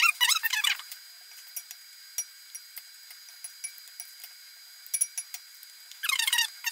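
A metal spoon stirring soaked tortilla pieces in a creamy dressing in a glass bowl. Light clicks of the spoon against the glass run through it, with two short bursts of squeaky scraping and wet mixing, one at the start and one near the end.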